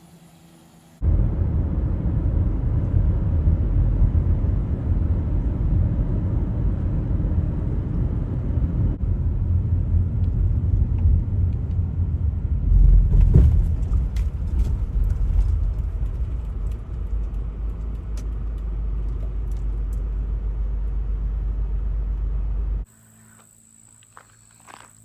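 Car driving, with a steady low rumble of road and wind noise that starts and stops abruptly and swells briefly about halfway through.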